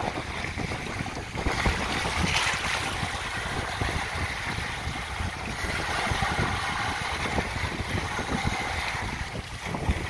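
Small sea waves breaking and washing over a rocky, pebbly shore, in two louder surges about two seconds and about six seconds in. A low rumble of wind on the microphone runs underneath.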